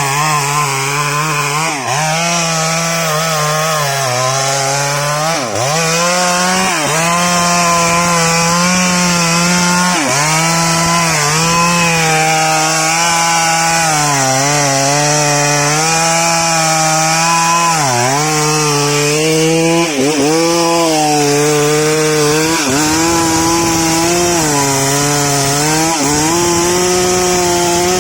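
STIHL MS 382 two-stroke chainsaw running at full throttle, cutting through old sengon wood. The engine pitch sags and recovers every couple of seconds as the chain bites into the wood under load.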